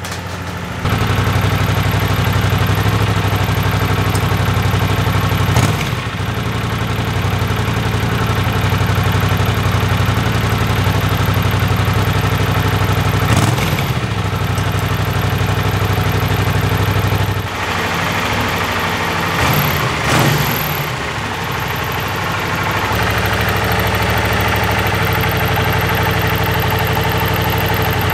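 Honda CX500's V-twin engine idling steadily while its carburettors are synchronised, with a few brief knocks and a short dip in its sound a little past halfway.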